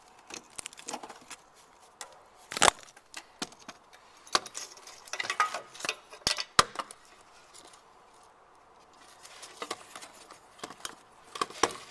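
Metal hand tools and sockets clinking and knocking together while a 10 mm socket is fetched. There are a few sharper knocks, the loudest about two and a half and six and a half seconds in, and a short lull around eight seconds.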